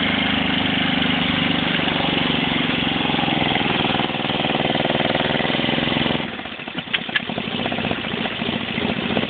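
Golf cart's engine running steadily as the cart drives through thick mud. About six seconds in the engine note drops sharply, with a couple of clicks, then picks back up near the end.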